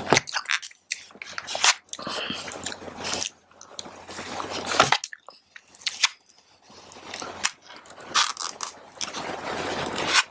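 Close-miked chewing of fried rice with tofu and crunchy green pepper: wet mouth smacks and crunches, with scattered sharp clicks.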